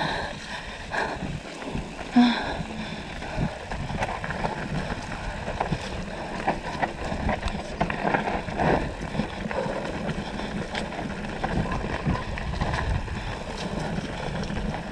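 Mountain bike rattling and clattering over a rough downhill trail, tyres on dirt and gravel, with wind on the action camera's microphone. A sharp knock about two seconds in.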